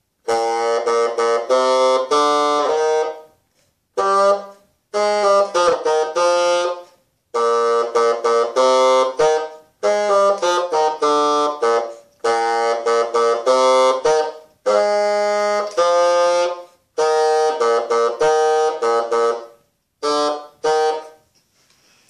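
Solo bassoon playing a melody in short phrases, with brief breath pauses between them; the last phrase ends about a second before the close.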